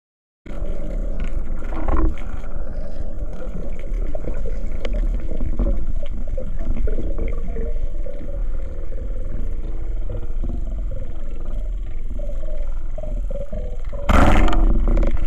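Muffled underwater rumble and water noise heard through an action camera's waterproof housing, with scattered faint clicks. About a second from the end comes a louder rush of noise lasting about a second as the speargun is fired.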